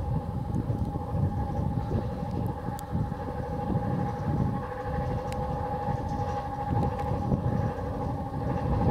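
La Rhune rack railway's wooden electric train, a three-phase electric rack railway, running along the track toward the listener. Its motors and gearing give a steady two-tone whine over a low rumble from the wheels and rack.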